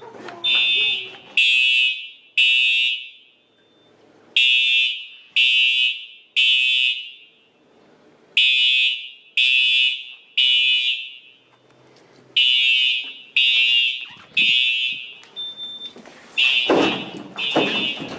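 Building fire alarm horns sounding the temporal-three evacuation pattern: three short, high-pitched blasts about a second apart, then a pause, repeating every four seconds. Voices are heard under the alarm near the end.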